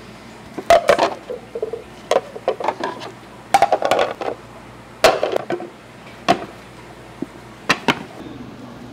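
Dishes, glassware and utensils clinking and knocking as they are handled and set down, in short clusters of sharp clinks a second or so apart that thin out in the second half.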